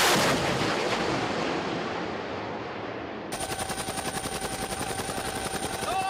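Explosion of a munition striking a target on the sea: a loud blast rumbling and dying away over about three seconds. About three seconds in it cuts to a steady, fast pulsing, like an aircraft's rotor, with a thin high whine over it.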